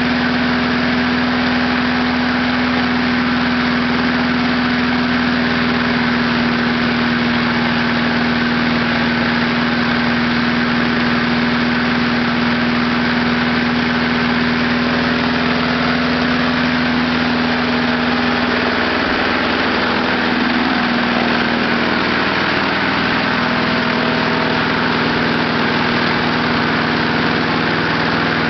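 Small lawnmower engine running steadily on a heated gasoline vapor fuel setup, its note shifting slightly about two-thirds of the way through.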